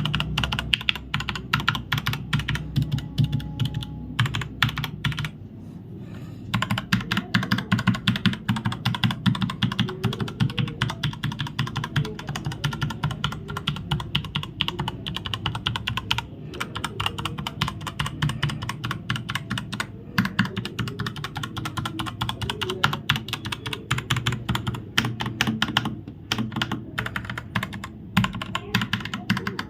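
Typing on a Zebronics Nitro Pro mechanical keyboard with Outemu Red linear switches: a fast, continuous run of key clicks, with a short pause about five seconds in.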